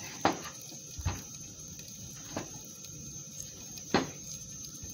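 Chef's knife slicing a tomato and knocking on a cutting board: four separate knocks at uneven intervals, the first and last the loudest.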